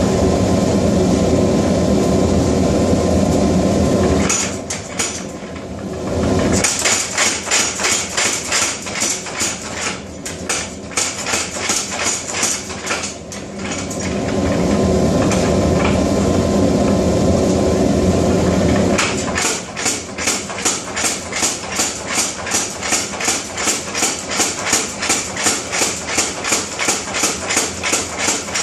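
Mechanical power hammer striking hot steel in fast runs of blows, broken by short lulls. In the last third the blows are evenly spaced at about three a second.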